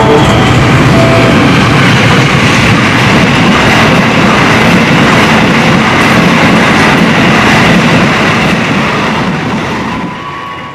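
Diesel-hauled express passenger train running through a station at speed: a loud, steady rush of locomotive and wheels on the rails as the locomotive and then the carriages go by. A few steady tones sound over it in the first second, and the noise fades near the end.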